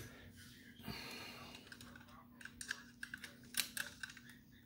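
Small metal clicks and taps of a screwdriver and pick working the plates out of a Kawasaki ZX-10R's wet clutch basket, scattered and irregular, mostly in the second half, over a faint steady hum.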